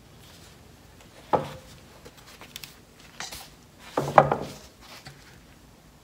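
Stretched canvas on a wooden frame knocking as it is tilted by hand: one sharp knock just over a second in, a few light taps, then a louder cluster of knocks about four seconds in.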